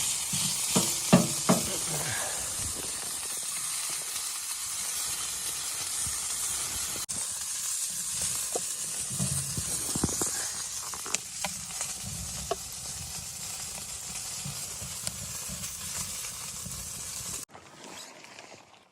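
Food sizzling in a pan on a wood stove, with a few utensil knocks in the first two seconds and a handful more later; the sizzle cuts off suddenly near the end.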